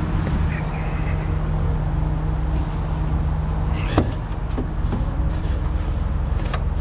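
Diesel engine of a heavy recovery truck idling steadily, with a sharp metallic clack about four seconds in, just after a brief hiss.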